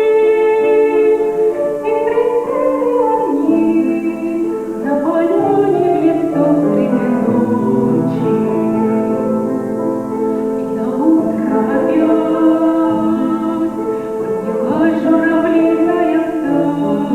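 A woman singing a song over instrumental accompaniment, with long held notes sung with vibrato.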